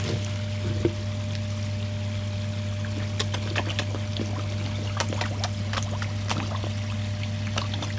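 Koi slurping and splashing at the pond surface as they take floating food, with many short wet pops that come thick from about three seconds in. Underneath, the pond's water runs steadily and a low hum holds.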